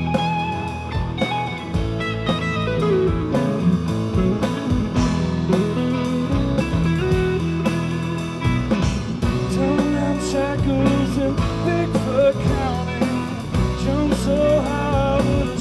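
Live rock band playing: two electric guitars, electric bass and a Pearl drum kit, with a sung vocal line coming in near the end.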